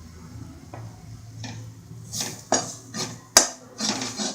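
A spoon stirring spice powders in a kadai, scraping and clattering against the pan from about halfway through, with one sharp knock.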